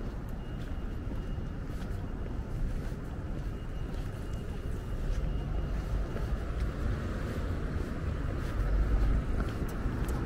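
Street ambience: a steady rumble of road traffic, swelling louder about nine seconds in as a vehicle passes close.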